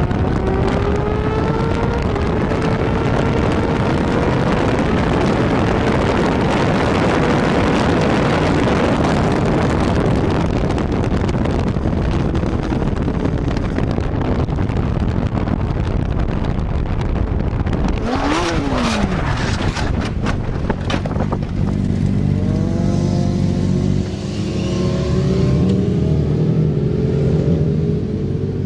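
Yamaha R6 sport bike's inline-four engine revving hard through corners under heavy wind noise. About two-thirds of the way in, the revs shoot up and fall away amid a series of sharp scraping and impact noises as the bike crashes. The engine then keeps running at a lower, steady pitch with the bike down on its side.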